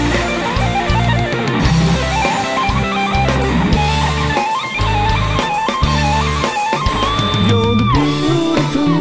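Instrumental rock music: an electric guitar plays a lead melody over drum kit and bass guitar, with one long held note about seven seconds in that then slides down.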